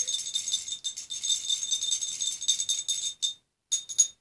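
Fast, continuous rattling scrape in the high register that stops about three seconds in, followed by a few short bursts of the same sound.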